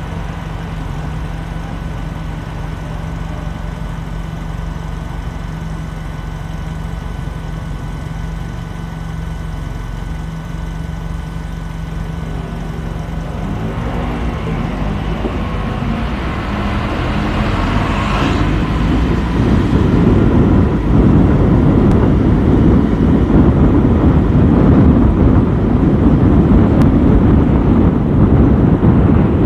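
Car driving through city traffic: a steady low engine and road drone. About two-thirds of the way in it swells into a louder, rougher low rumble.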